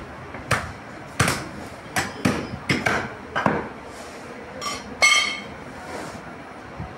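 A butcher's cleaver chopping through beef ribs on a wooden stump chopping block, about seven sharp strokes in the first three and a half seconds. About five seconds in comes a ringing metallic clink.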